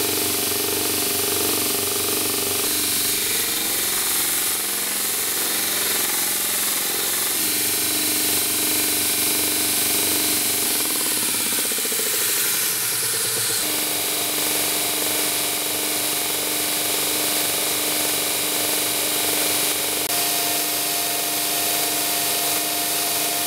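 Bench grinder motor driving a homemade belt grinder: the abrasive belt running, with a steel bar ground against it in the first half. About halfway through the sound settles into a steady hum of the machine running without load.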